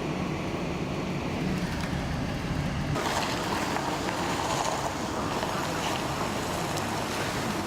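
Steady rushing road noise from a vehicle, with a low hum under it that gives way about three seconds in to a brighter hiss.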